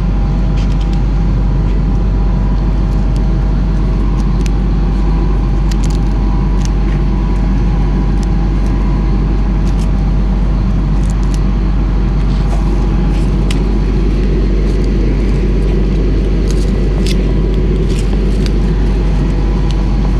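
A vehicle engine running steadily with a deep even hum, with a few faint clicks and knocks over it.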